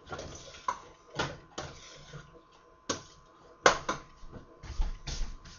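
Metal spoon stirring a thick beef stew in a stainless steel pot, clinking and scraping against the pot in irregular knocks, about eight over a few seconds.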